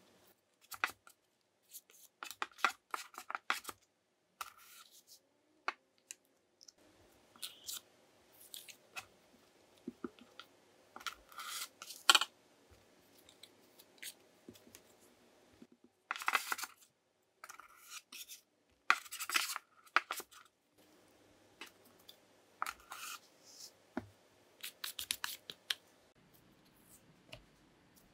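Kitchen utensil scraping and cutting through scone dough or a flour-and-butter mix, in short rough strokes of about half a second to a second, with pauses and a few sharp clicks between them.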